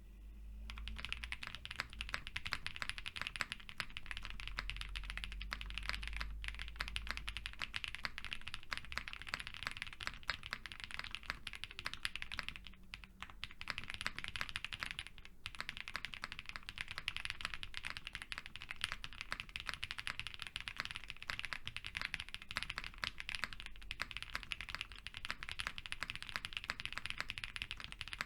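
Continuous fast typing on an Odin V2 custom mechanical keyboard: leaf-spring gasket mount, polycarbonate plate, all foams fitted, lubed Whipped Cream linear switches and GMK keycaps. A dense stream of keystrokes starts about half a second in, with two short pauses around the middle.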